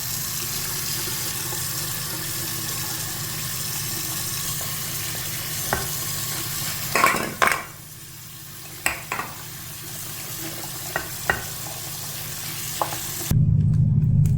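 Water running steadily from a tap over a phone being washed, with a few sharp knocks and clicks as it is handled against the sink, the flow going softer about halfway through. Near the end the water stops suddenly and a loud, low, steady hum starts.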